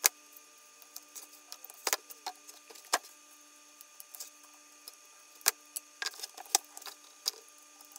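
Scattered sharp metallic clicks and taps of a screwdriver and small parts working the brushes and brush springs out of an Autolite 6-volt starter's end frame, with tools set down on a wooden bench.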